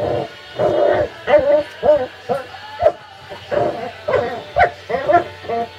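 Four-week-old puppies whining and yipping, a string of short, high, wavering calls coming about two a second.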